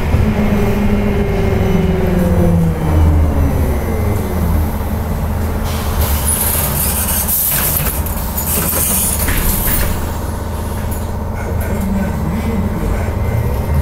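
Cabin noise of a moving trolleybus: steady running rumble, with the electric traction motor's whine gliding in pitch over the first few seconds. A hiss of air comes in about six seconds in and lasts a few seconds.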